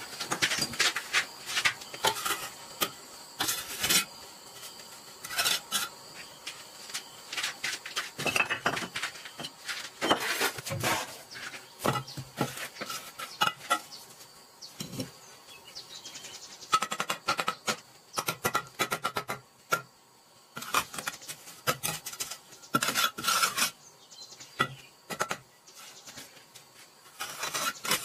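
Steel bricklaying trowel scraping wet mortar and clinking against bricks, in irregular strokes and taps as mortar is spread and bricks are set into a wall.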